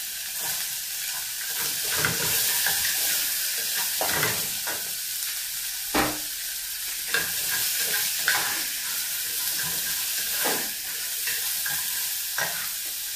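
Onions sizzling in hot oil in a metal sufuria, with a spoon scraping and knocking against the pot every second or two as they are stirred.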